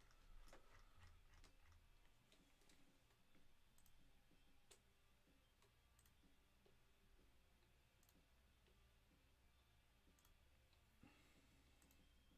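Near silence with a few faint, irregularly spaced clicks of a computer mouse.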